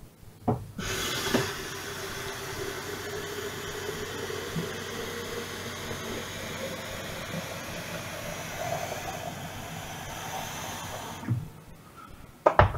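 Tap water running into a metal electric kettle in a steady rush, its tone rising in pitch as the kettle fills. The tap stops about eleven seconds in, followed by a few clicks and knocks as the kettle is handled.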